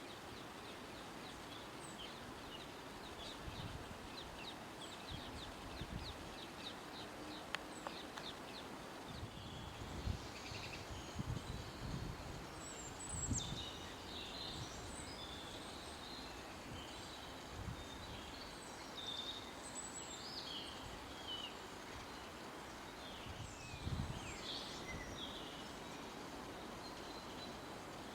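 Forest ambience of several birds calling over a steady background hiss. A fast, evenly repeated chirping runs through the first third, then varied short calls and chirps from different birds follow, with occasional soft low thumps.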